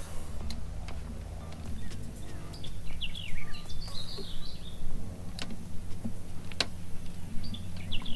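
Wild birds chirping, in a few quick bunches of short falling calls, over a steady low hum.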